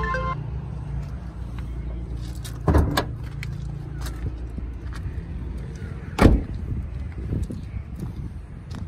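Car door of a Daihatsu Mira: a knock about three seconds in, then a louder slam as the door is shut about six seconds in, over a steady low rumble.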